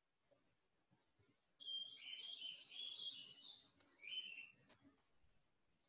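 A bird chirping in a quick run of high, short notes that step up and down in pitch, starting about a second and a half in and stopping after about three seconds.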